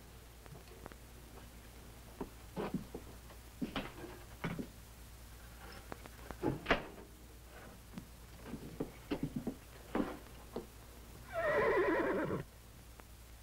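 Scattered light clicks and knocks of kitchen handling at a refrigerator and counter. About eleven seconds in, a horse whinnies once, a falling call about a second long and the loudest sound here.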